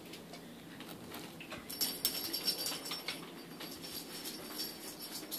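Plastic grocery bags rustling and crinkling as a kitten scrambles into the pile, with rapid irregular crackles starting about two seconds in.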